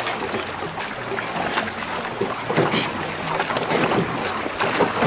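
Small boat moving along a river: water splashing against the hull, with wind buffeting the microphone.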